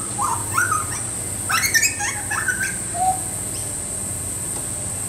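Juvenile butcherbird singing: a young bird practising its song in a string of short, varied notes that rise and fall, over the first three seconds or so.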